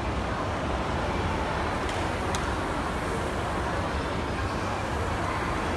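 Steady busy shopping-mall ambience while riding an escalator: an even wash of crowd and building noise over a low rumble, with one faint click a little after two seconds in.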